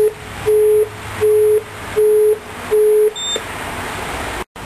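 Station help point intercom sounding a row of short, even low beeps, about three every two seconds, marking the end of its automated announcement; the beeps stop about three seconds in, leaving steady background noise.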